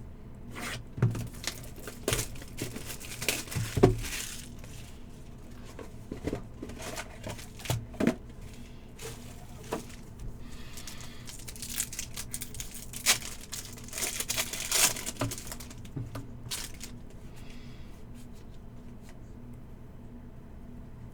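Packaging of a trading card hobby box being torn open and wrappers of the card packs crinkled and ripped, in irregular crackles and snaps that thin out near the end.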